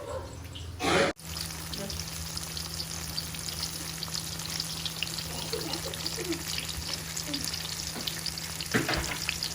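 Battered cempedak pieces deep-frying in hot oil in a wok: a steady sizzling crackle. A short louder sound comes about a second in.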